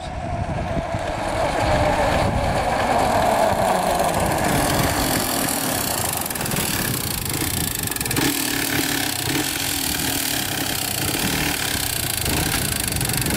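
Yamaha Blaster quad's single-cylinder two-stroke engine revving hard for the first few seconds, then dropping to lower revs as it rolls slowly along.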